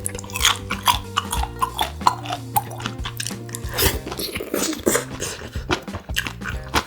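Close-miked chewing and biting of grilled pork intestine (makchang), a run of many sharp wet mouth clicks, over background music with held notes.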